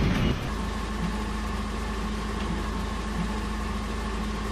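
A steady machine hum with a faint higher whine, even and unchanging, after a voice trails off about half a second in.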